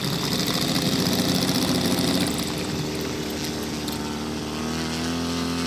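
Saito FG-84R3 three-cylinder radial petrol engine in a 1/3-scale Piper J-3 Cub model idling steadily while the model taxis after landing.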